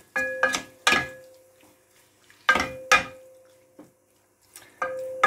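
Wooden spoon knocking and scraping against a pan while stirring lamb pieces and curry spice together, a few sharp knocks in pairs, each leaving the pan ringing briefly.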